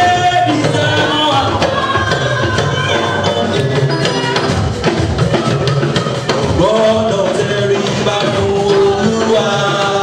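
Worship song sung by a group of voices over drums and percussion keeping a steady beat.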